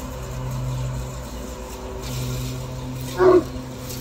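Ryobi battery-electric riding mower running with a steady hum. One short, loud call stands out about three seconds in.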